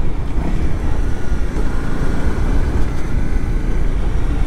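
Dual-sport motorcycle riding along, a steady mix of engine and wind noise on the rider's microphone.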